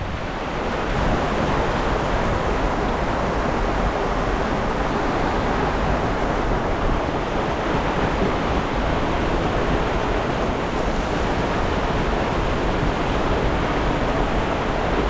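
Steady rush of waves and wind around a sailing yacht under way, with no distinct knocks or tones.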